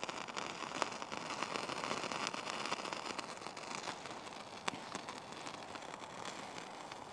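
Water-soaked wood-fibre tinder crackling and sizzling under a lighter flame, with many small pops. The sound eases off after about four seconds, once the lighter is taken away and the tinder burns on its own with a small flame.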